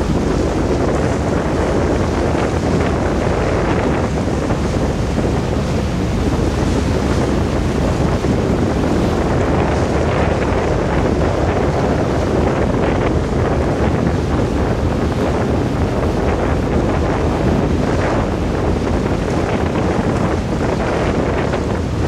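Steady wind buffeting the microphone on the deck of a car ferry under way, over the ship's low rumble and the rush of water.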